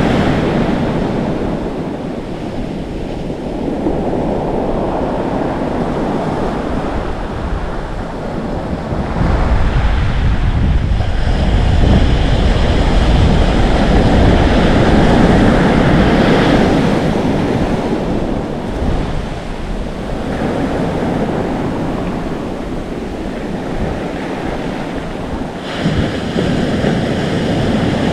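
Atlantic Ocean waves surging and foaming on the shore, swelling and ebbing, with wind blowing on the microphone. A deep rumbling surge builds about a third of the way in and fades again past the middle.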